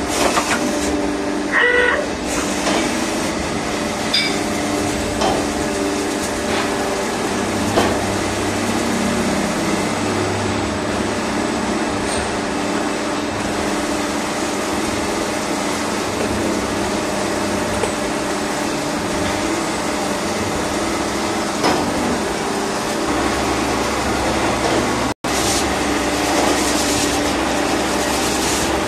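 CNC turning lathe running as it machines a stainless steel part: a steady hum with several held tones over the hiss of coolant spraying onto the spinning workpiece, with a few light clicks. The sound drops out for an instant near the end, and after it a low hum is stronger.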